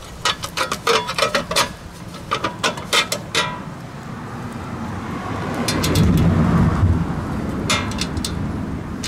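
A quick run of small metal clicks and knocks from hands working the parts of a vintage belt sander. Then a long, low rumble of thunder builds and slowly fades.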